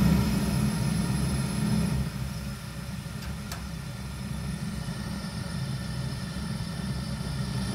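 Burner of a 1997 Zhukovsky 23 kW gas heating boiler running with the gas tap at about a quarter open: a steady low rumble. It dips about two seconds in and slowly builds again, with one faint click midway. This tap setting is where the owner hears the boiler's clicking, grunting noise.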